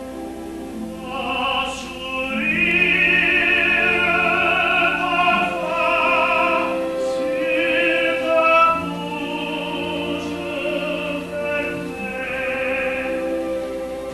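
Music: an operatic voice singing long held notes with vibrato over sustained classical accompaniment.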